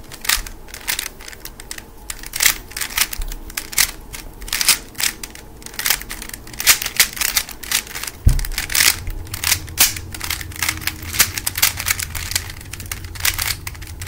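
Rapid plastic clicking and clacking of a 3x3 Rubik's cube being turned fast during a speed solve, irregular runs of several turns a second. A single low bump comes about eight seconds in.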